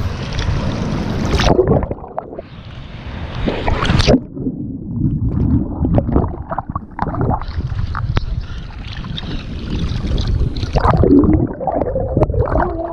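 Sea water sloshing and splashing around the microphone, with wind buffeting it. The sound turns muffled and dull for a few seconds at a time, then opens up again.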